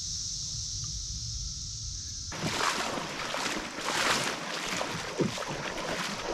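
Wind rumbling on the microphone under a steady high hiss. About two seconds in it switches abruptly to a louder rush of water and wind noise with irregular splashy bursts.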